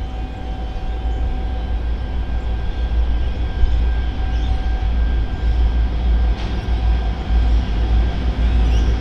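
Diesel-electric locomotives (N456 leading A66) hauling a passenger train on approach, a steady low engine rumble with a few held engine tones, growing gradually louder as the train nears.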